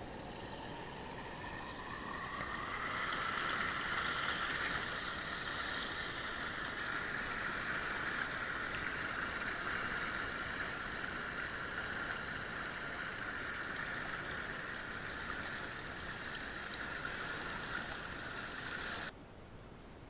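Fast, churning forest creek in spring rushing and gurgling over stones and a small cascade, a steady watery rush. About a second before the end it drops suddenly to a softer flow.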